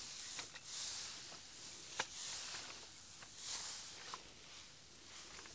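Dry straw rustling as it is lifted and tossed with a hand pitchfork: a short swish about every second and a half, with a few sharp clicks, the loudest about two seconds in.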